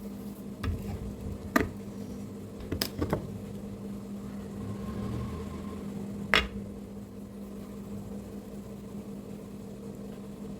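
A few sharp clicks and knocks of a spoon against a dish, about five in all, the loudest about a second and a half in and again past the middle, over a steady low hum.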